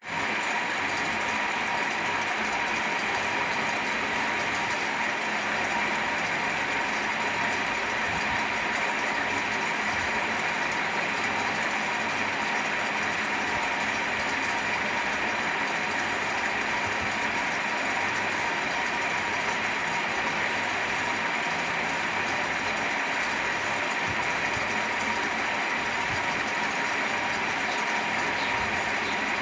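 Electric fan running steadily: an even rushing air noise with a faint steady whine on top.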